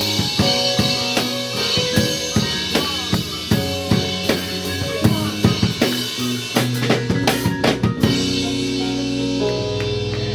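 Band music: a drum kit keeps a steady beat over held keyboard chords. About seven seconds in the drums play a quick run of hits and then stop, leaving the chords sustaining.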